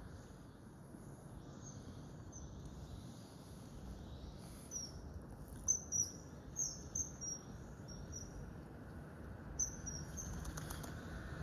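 Common kingfisher giving a run of short, high, downward-sliding chirps in the middle, then a few more near the end, over a steady low hiss of water and background noise.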